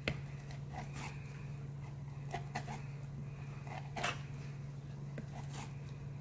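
Santoku knife blade scraping fat and membrane off raw chicken thigh skin on a plastic cutting board: a handful of short, irregular scraping strokes, the strongest about four seconds in, over a steady low hum.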